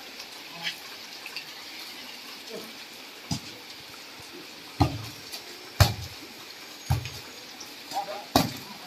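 Heavy rain hissing steadily on a wet concrete court, broken by about five sharp slaps of a volleyball being struck by hands during a rally.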